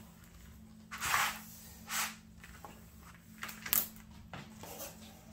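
Plastic-covered diamond painting canvas rustling as hands unroll and smooth it flat: a few separate swishes, about one second, two seconds and nearly four seconds in.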